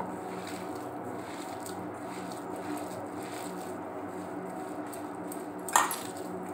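Hands squeezing and mixing grated bottle gourd with gram flour in a stainless steel bowl, quiet over a steady low hum, with one sharp metallic clink near the end.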